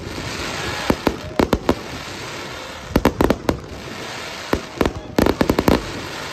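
Aerial fireworks display: shells bursting in quick volleys of sharp bangs, several bangs a second within each volley, with the densest run of bangs near the end.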